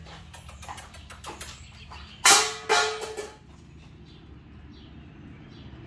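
Two loud, sudden clangs about half a second apart, each ringing briefly: a startle noise made to test a puppy's sound sensitivity. Light footsteps and ticks on the rubber mat come before them.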